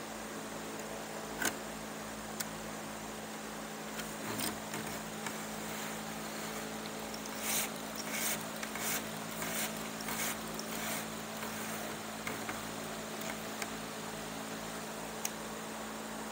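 Strand of chair cane rustling and scraping as it is threaded and pulled through the woven cane, in a cluster of short bursts midway, with a few light clicks, over a steady low hum.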